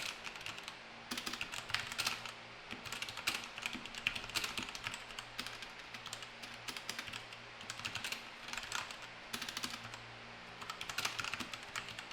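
Ajazz AK33 RGB mechanical keyboard being typed on: runs of rapid, clicky keystrokes in bursts with short pauses between them.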